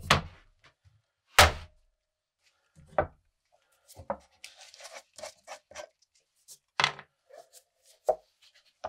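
A steel hatchet head set down on a wooden workbench with a thunk, then a second, louder knock. Lighter knocks and a short scratchy rustle follow as a metal can of boiled linseed oil is handled and its cap unscrewed.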